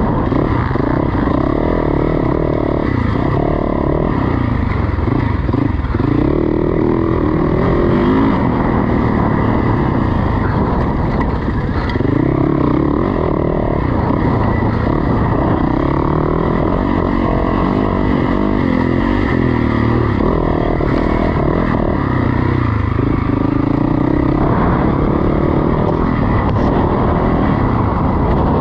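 Enduro dirt bike engine being ridden hard, its revs rising and dropping back every few seconds as the throttle opens and closes.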